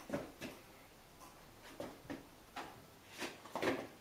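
Irregular short knocks and clunks from wheel skates and steel pull bars as a truck is hauled across a concrete floor on them, about eight in four seconds, the loudest near the end.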